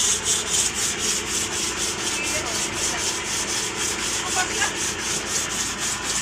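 Rapid, even scrubbing strokes, about five a second, as the cylinder liners of a Yuchai diesel engine block are cleaned and smoothed by hand during an overhaul. A faint steady hum runs underneath.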